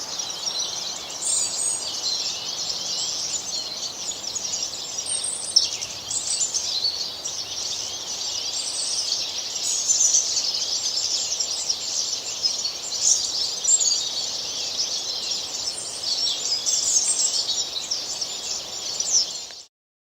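Many birds chirping and twittering over one another in a dense chorus, which cuts off suddenly near the end.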